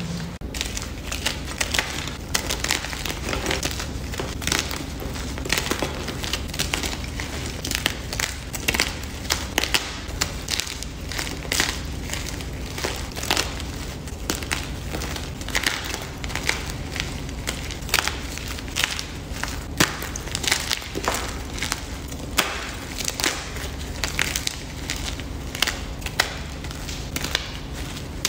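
Blocks of gym chalk crushed and crumbled by hand, giving a steady run of dry, sharp crunches and crackles as the chalk breaks into chunks and powder.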